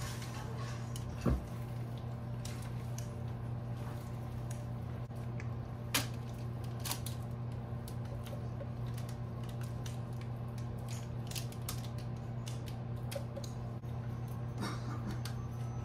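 A spatula scraping and tapping in a glass mixing bowl as thick banana bread batter is folded and scraped out into a parchment-lined loaf pan, with scattered small clicks and a sharp knock about a second in and another at about six seconds. A steady low hum lies underneath.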